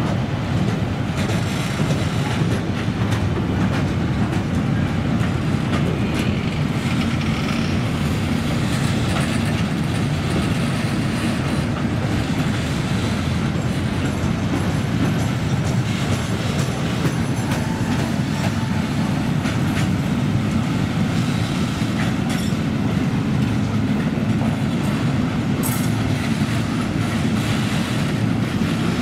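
Long freight train of covered sliding-wall wagons rolling steadily past, a continuous rumble of steel wheels on rail with clickety-clack over the rail joints.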